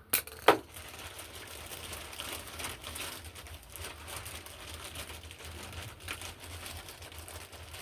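Two sharp knocks in the first half-second, then continuous crinkling and light clattering: hands working on washing machine parts.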